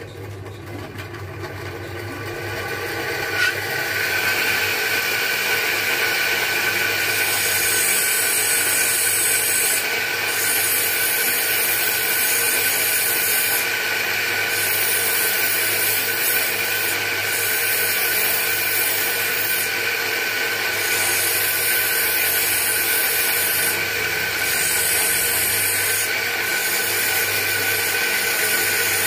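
A 6-inch bench grinder with a flat disc spins up over the first few seconds, then runs with a steady whine while a small synthetic cat's eye stone is pressed against the disc. A grinding hiss comes and goes every few seconds as the stone is ground to shape.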